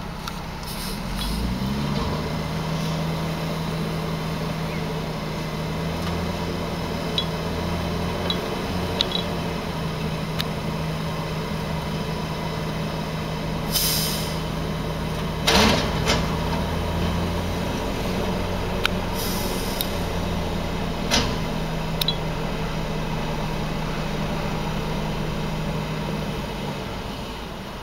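Mack MR front-loader garbage truck with a Heil body running steadily at raised engine revs while its hydraulic forks lift a dumpster over the cab and tip it into the hopper. A short hiss comes about halfway, then a loud metal bang from the container as it empties, with lighter clanks later on.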